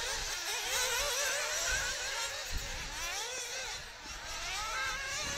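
1/8-scale nitro off-road buggies racing, their small two-stroke glow engines revving up and down. Several high-pitched engine notes overlap and keep rising and falling.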